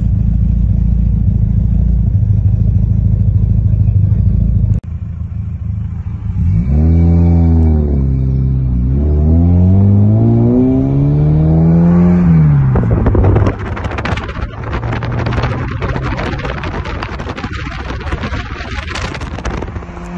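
Ford Granada's engine, first running at a steady low idle, which cuts off suddenly. Then, heard from inside the cabin, it pulls away and accelerates: the engine note rises, dips at a gear change, rises again and eases off. After that comes road and wind noise with rapid buffeting.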